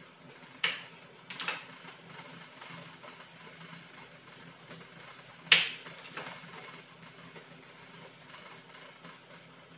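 A few sharp clacks of kitchen items being handled on the counter: one under a second in, a pair around a second and a half, and the loudest at about five and a half seconds. Under them runs the steady low hum of an induction cooktop.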